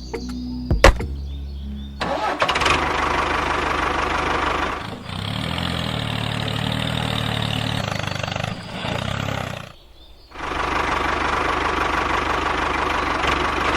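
A motor running steadily in two stretches, starting about two seconds in and cutting out briefly near ten seconds before starting again.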